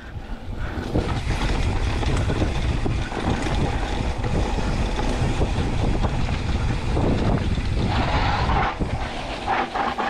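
Wind buffeting the microphone over the steady rumble of mountain-bike tyres on a rough dirt trail, with the bike rattling over bumps, the clicks thickening near the end.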